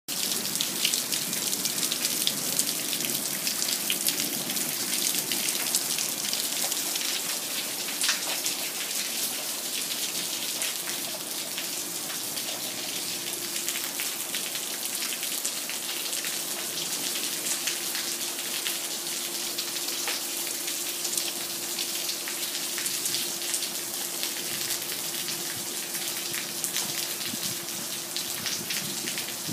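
Monsoon downpour: rain falling steadily in a dense patter of drops.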